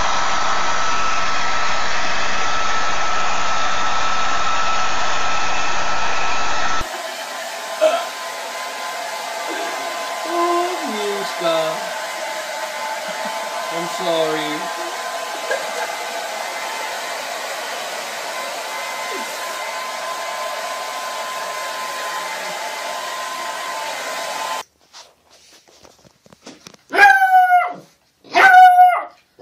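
Hair dryer blowing steadily, its hum changing tone once about a quarter of the way in, with a few short falling cries over it. Near the end a small dog barks three times, loud and high.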